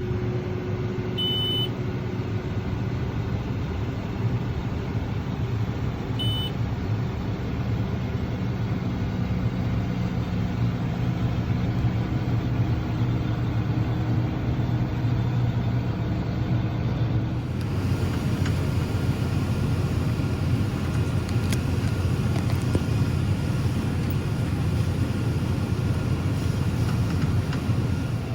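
Combine harvester running steadily at work, a continuous engine and machinery drone heard from the cab. Two short high beeps sound about five seconds apart near the start, and a higher hiss joins about two-thirds of the way through.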